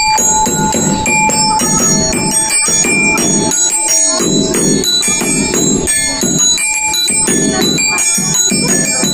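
Music with bright, bell-like tones that change quickly, over a dense, steady backing.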